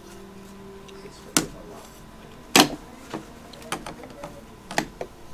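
Several sharp knocks and clicks of hard parts being handled and set down, the loudest about two and a half seconds in, over a faint steady hum.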